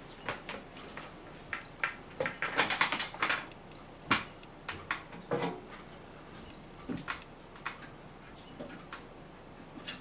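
Hard parts of a kitchen ventilation fan being handled during cleaning: irregular clicks, clinks and knocks, with a dense clatter about two to three seconds in and a sharp knock about four seconds in.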